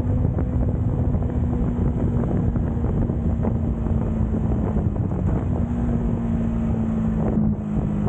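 Yamaha MT motorcycle engine running steadily at highway cruising speed, its note holding nearly level, with heavy wind noise rushing over the microphone.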